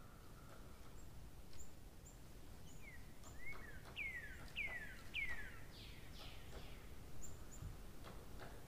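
Birds calling outdoors: a run of about five quick falling notes, one every half second or so, in the middle, with short high chirps repeating throughout, over steady low background noise.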